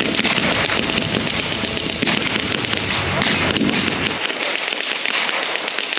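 Dense, rapid crackle of blank gunfire and pyrotechnic charges: many sharp cracks in quick succession, with a low rumble under them that drops away about four seconds in.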